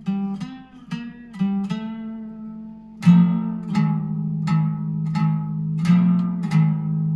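Grill scraper rigged as a homemade string instrument, played through a small guitar amplifier: a quick run of plucked notes, then from about three seconds in a steady pattern of plucks roughly every 0.7 seconds, each leaving a long-held low note.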